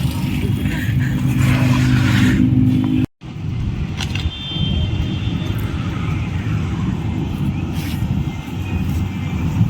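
Traffic and wind noise heard while moving along a road: a heavy low rumble, with a motor vehicle's steady engine hum in the first three seconds. The sound cuts out completely for a moment about three seconds in, then the rumble carries on.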